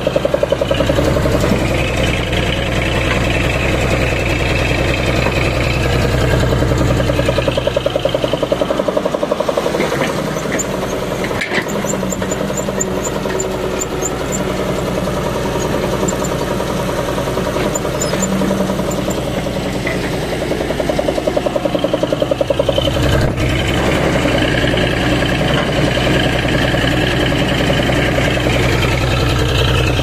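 Caterpillar E140 excavator's diesel engine running with a steady fast throb as the machine works, louder over the first several seconds and again near the end, with a couple of sharp clicks in between.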